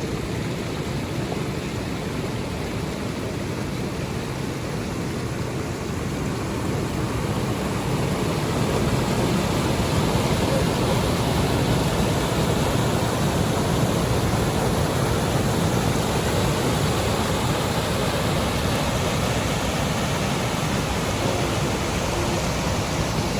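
Water rushing steadily over small lake cascades, a constant even roar that grows a little louder about seven seconds in.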